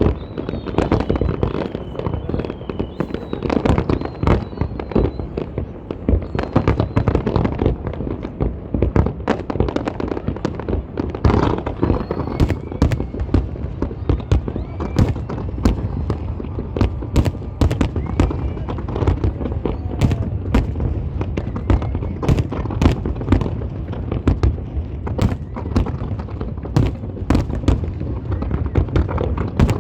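New Year fireworks display: a dense, unbroken barrage of bangs and crackles, many a second, over a low rumble from the shells bursting.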